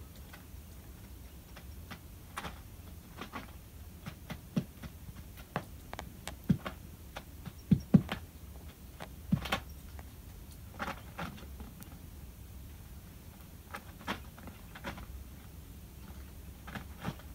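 King quail hen nest-building before laying her first egg: irregular soft taps and scratches as she works the paper bedding, with faint quiet 'pipo pipo' peeps, an unusual pre-laying call.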